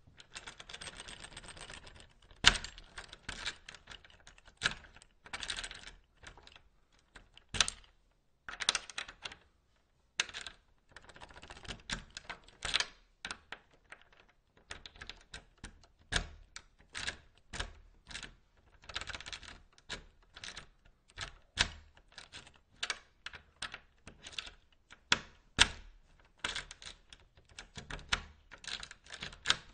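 A key being pushed into a door lock and turned, again and again: metallic scraping rattles and sharp clicks, in irregular clusters, with the sharpest click about two and a half seconds in.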